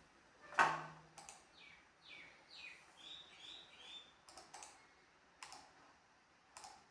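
Several sharp clicks, the loudest about half a second in, and a run of about six short, high, falling chirps from about one and a half to four seconds in.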